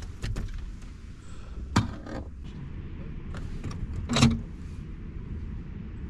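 Several sharp knocks and clatters of fishing gear against a metal jon boat, the loudest about four seconds in, over a steady low rumble.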